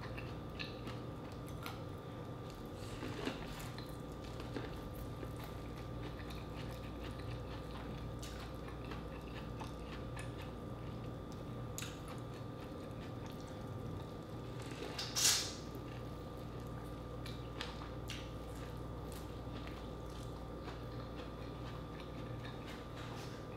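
A person chewing seafood-boil food such as corn on the cob close to the microphone: faint, scattered mouth clicks and smacks over a steady electrical hum, with one brief louder hiss about fifteen seconds in.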